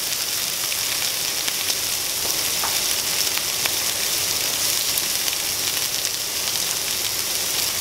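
Shrimp frying in oil in a nonstick skillet over medium-high heat: a steady sizzling hiss with scattered small pops and crackles.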